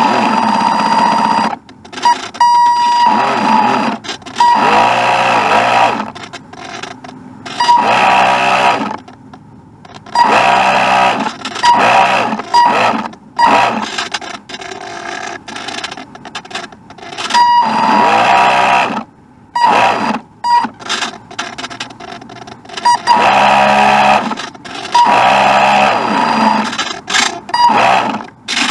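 Loud electronic buzzing and whining with a steady high tone, cutting in and out every second or two, with a whine that glides up and down in pitch.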